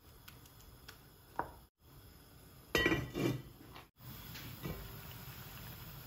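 Clinks and clatter of utensil and lid against a Le Creuset enamelled cast-iron pot: light taps and a short ring, then a louder double clatter about three seconds in, then a faint steady simmer.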